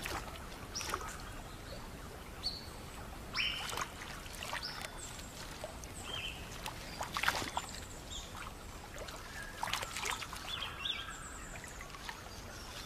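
Water splashing and dripping with scattered sharp knocks as a platypus is handled in a wet eel net, under many short high chirps.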